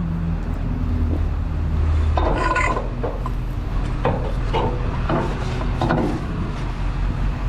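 Wood and scrap being handled: several sharp knocks and scrapes spread through, over a low steady hum that fades about two seconds in.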